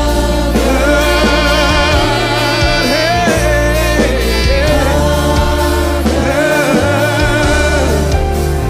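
Live gospel worship music: singers holding and bending long sung notes over a band with bass, keyboard and drums, at a steady beat.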